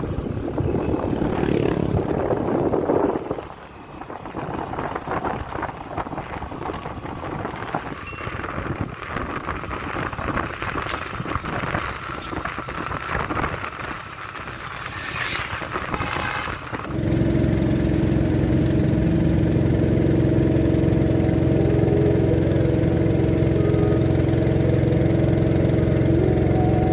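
Wind rushing over the microphone and a Yamaha scooter running along a road. About 17 seconds in, the sound gives way to a steady motor drone holding one pitch: a boat engine carrying the scooter across a river.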